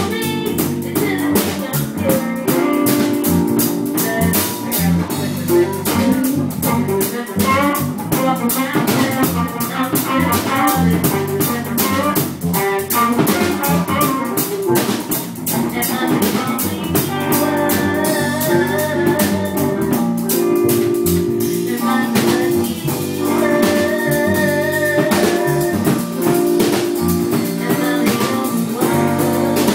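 An instrumental trio playing live at rehearsal: a drum kit with busy drum and cymbal hits keeps time under sustained chords and a melodic line, with no singing.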